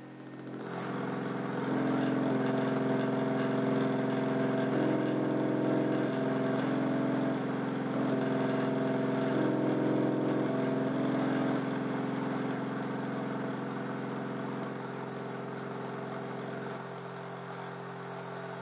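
Crossfire C3 12-inch subwoofers driven with a 45 Hz test tone, giving a loud, steady low buzz with a stack of overtones, starting about half a second in. The upper overtones switch in and out in steps and the sound eases slightly near the middle. The second subwoofer is working as a generator here and is running a small AC synchronous motor.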